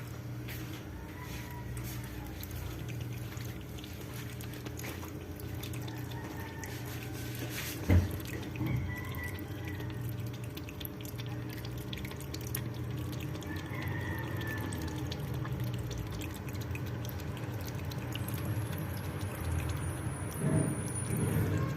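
A pet lapping water: a steady run of wet, clicking laps and drips, with one louder knock about eight seconds in.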